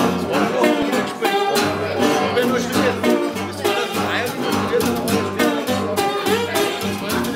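Live acoustic blues trio playing a walking blues: a lap-style slide guitar with gliding notes, a plucked upright double bass and a strummed acoustic guitar.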